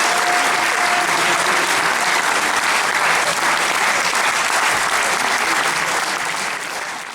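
Concert audience applauding steadily, fading out at the end.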